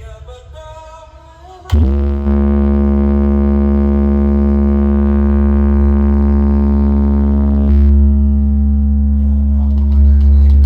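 A DJ sound system playing a loud, deep, steady drone as a bass vibration test. It cuts in suddenly about two seconds in after a quieter start and holds one pitch.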